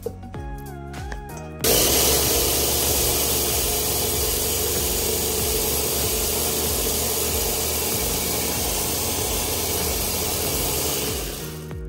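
Electric grinder running, coarsely grinding dry-roasted flaxseeds. It starts abruptly after a short stretch of background music and winds down near the end.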